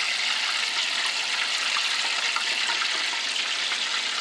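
Hot oil and butter sizzling in a cast-iron skillet: a steady hiss with small scattered crackles.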